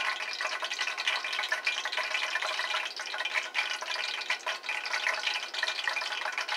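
Hot cooking oil sizzling and crackling steadily in a frying pan, with many small pops.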